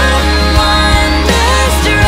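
Background music: a song with a sung melody over a heavy, steady bass.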